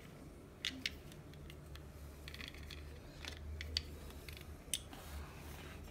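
Faint ticks and scrapes of a small hex key working the set screws on a Nightforce scope's elevation turret, with a handful of sharp clicks spread through, over a low steady hum.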